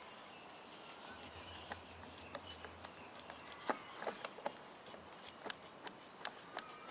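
Snips cutting along the edge of a black polymer horse-fence rail: a run of irregular, quiet clicks as the blades close again and again through the plastic.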